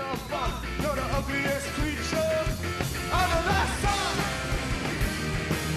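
A rock band playing live: a male singer over electric guitar, bass and drums.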